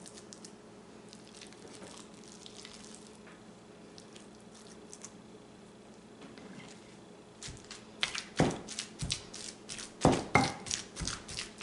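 A spoon scraping cooked mutton and chana dal mixture into a stone mortar with soft scrapes. About seven and a half seconds in, a wooden pestle starts pounding the mixture in the mortar: a run of dull thuds, crushing the meat into kabab paste.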